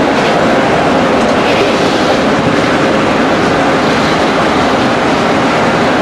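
Loud, steady noise inside a stationary police SUV's cabin: an even hiss with no separate knocks or clicks.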